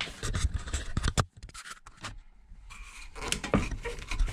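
Scrapes and sharp little clicks of hands working under a close-coupled toilet cistern, with camera handling noise. There is a quieter lull in the middle before the clicking resumes.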